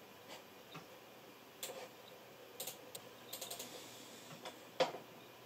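Computer mouse button clicking, a string of faint short clicks, some in quick runs, with the loudest single click near the end.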